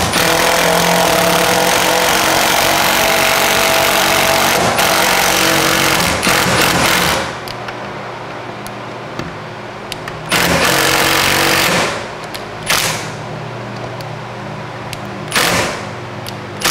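Cordless impact driver running hard for about seven seconds as it drives a fastener through a wall-mounting bracket into the wall. It follows with a burst of about a second and a half and two short bursts as the fasteners are snugged down.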